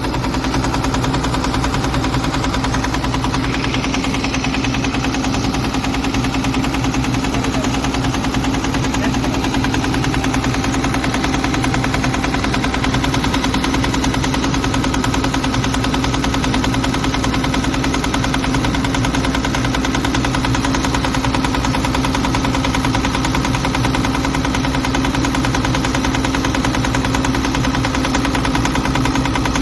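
Volvo EC210 excavator's diesel engine running steadily with a rattling knock. The mechanic blames a faulty injector nozzle for the engine's heavy smoke.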